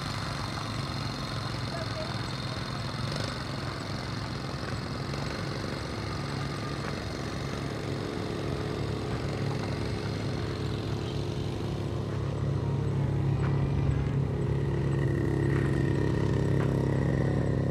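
Small quad bike engine running steadily, louder about twelve seconds in.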